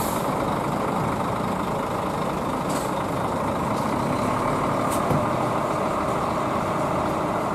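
Large diesel bus engine idling steadily, an even noise with a few faint ticks.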